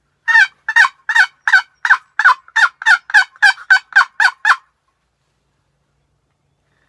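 A hunter's turkey call giving a loud run of about a dozen yelps imitating a hen turkey, about three a second and quickening slightly, stopping about four and a half seconds in.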